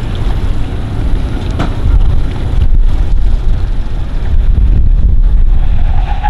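Wind buffeting the microphone: a loud, gusty low rumble over faint outdoor background noise.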